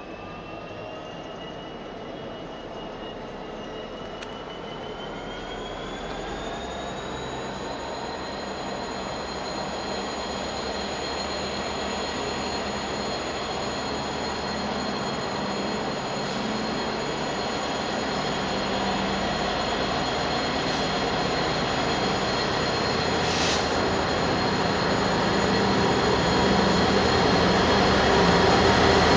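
DB Schenker Class 66 diesel locomotive with a freight train approaching, growing steadily louder. A high whine from the wheels and rails rises in pitch over the first several seconds, then holds steady, while the low drone of the locomotive's two-stroke V12 diesel engine builds up near the end.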